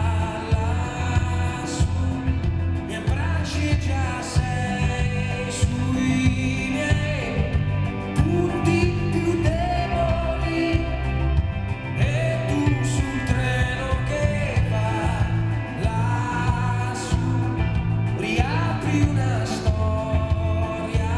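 Live pop-rock song: a male lead vocal sung into a microphone over a band with electric guitar and a steady beat.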